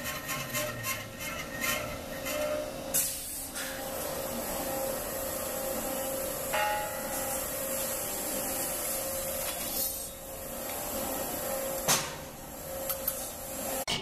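Vertical metal-cutting bandsaw running with a steady hum and blade hiss, cutting a brass rod into short pins. A sharp click about twelve seconds in.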